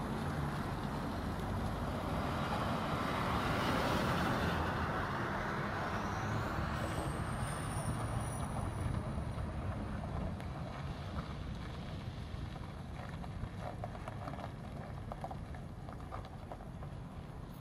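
Chevrolet Silverado 2500HD service truck driving slowly on a dirt lot: engine running and tyre noise on the dirt, loudest about four seconds in as it passes closest, then slowly fading as it moves off. A thin high whistle rises and falls briefly about seven seconds in.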